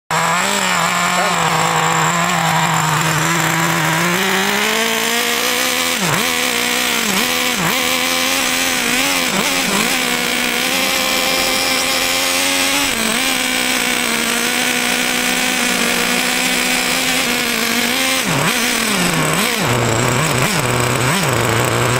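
A small engine runs steadily at a fairly high, even pitch. It rises a little early on and dips sharply in pitch several times, as if briefly throttled back, then settles to a lower pitch near the end.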